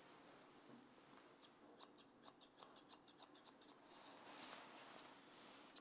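Grooming scissors snipping the ends of a Havanese's ear hair: a quick run of short, crisp snips, about five a second, starting about a second and a half in, then one more snip a little later.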